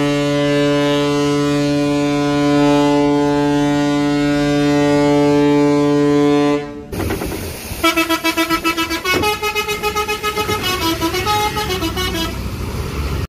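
A ship's horn sounds one long, steady blast, cut off suddenly about seven seconds in. Then a tour bus's musical multi-tone 'telolet' horn plays a fast pulsing tune whose notes step up and down.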